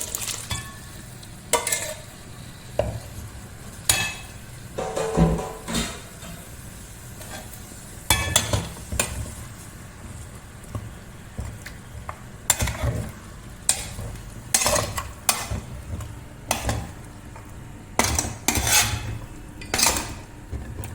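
A spoon stirring beef and masala in a cooking pan, scraping and knocking against the pan at irregular moments over a steady low sizzle.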